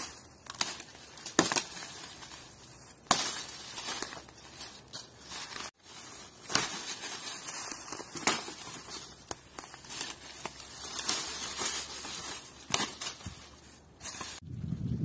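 Dry twigs and leaf litter crunching and crackling irregularly, with several sharp snaps.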